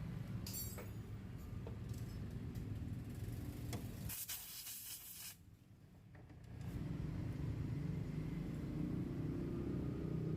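Low, steady engine rumble. A loud hiss lasting about a second cuts in around four seconds in. The rumble drops away briefly and then returns.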